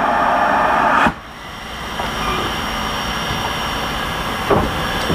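Ukko-Pekka, a VR Class Hr1 steam locomotive, pulling slowly away: a loud hiss of steam cuts off suddenly about a second in, followed by the steady running noise of the locomotive, with one short sharp sound about four and a half seconds in.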